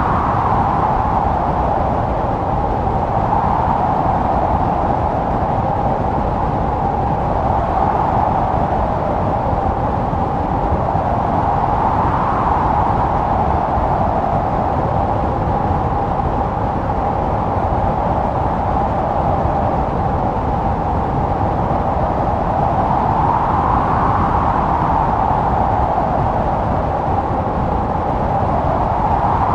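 Blizzard wind blowing steadily, with a moaning tone that swells and rises slightly in pitch every several seconds over a low rumble.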